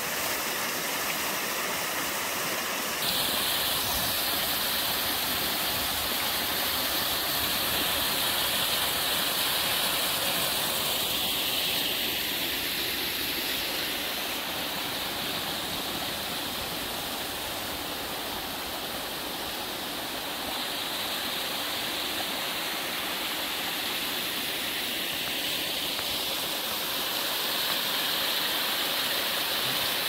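Small waterfall and mountain stream rushing over granite rock in a steady, even roar of water. About three seconds in the rush becomes a little louder and brighter.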